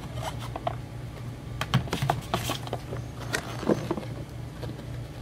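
Sliced raw mushrooms dropped by hand into a plastic bowl of beer batter: a string of soft, irregular taps and plops, over a steady low hum.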